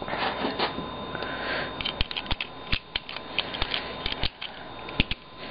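Plastic pieces of a 3x3 puzzle cube clicking and clacking as it is reassembled by hand: a dozen or so sharp clicks at uneven intervals.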